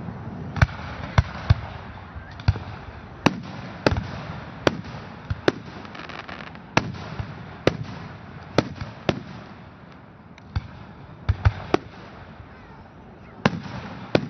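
Aerial firework shells bursting in a display, about twenty sharp bangs at irregular spacing, some only a fraction of a second apart, each trailing off in an echo.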